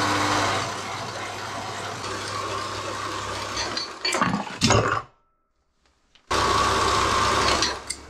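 Metal-cutting horizontal bandsaw running as its blade cuts through square steel tube at a 45-degree angle. About four seconds in, the cut-off piece drops and clatters into the tray below. After about a second of silence the saw runs again briefly and then stops.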